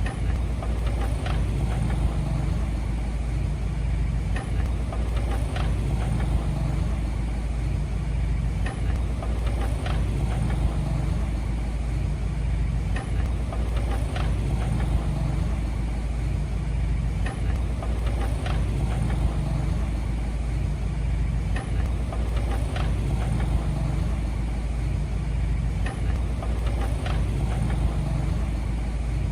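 Diesel engine of heavy earthmoving equipment running steadily, with light clicks now and then.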